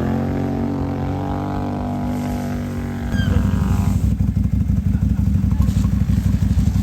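Off-road vehicle engine running, its steady tone easing slightly lower. About three seconds in the sound changes to a louder, rough, fast-pulsing low engine note.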